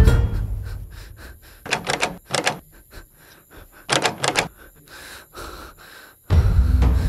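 Quick raps on a wooden door, three bursts of three or four knocks each, about two, two and a half and four seconds in. A loud thud rings out at the start, and a low, dark music drone swells in near the end.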